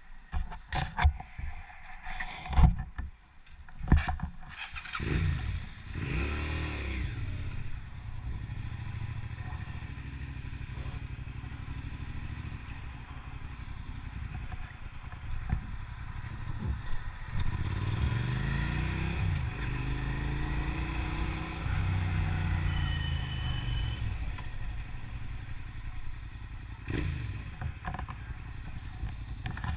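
Motorcycle engine running while being ridden, after several sharp knocks and clatters in the first few seconds. The engine pitch climbs about five seconds in, then rises and falls with changes in speed, most clearly in the second half.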